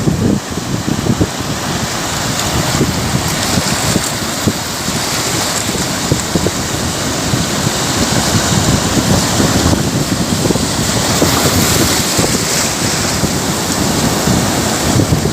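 Wind buffeting the microphone over the sound of the sea's waves, the wash of the water swelling through the middle and easing off.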